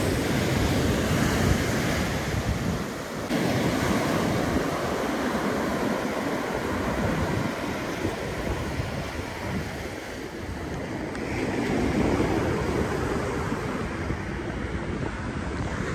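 Sea waves breaking and washing up a sandy beach, a steady surf that swells and eases, with wind rumbling on the microphone.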